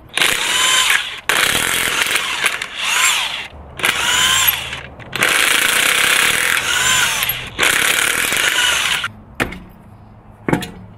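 Cordless impact wrench with a 19 mm socket hammering lug nuts loose on a truck wheel, in about six bursts of a second or two each, its motor pitch rising and falling within each burst. A single sharp knock near the end.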